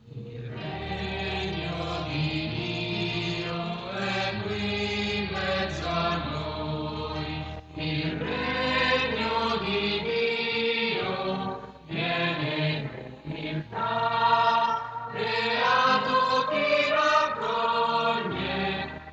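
Hymn sung by a group of voices in a slow, chant-like style over a sustained low accompaniment, with short breaks between phrases.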